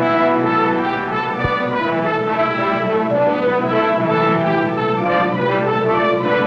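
Orchestral music led by brass, playing held chords that change every second or so.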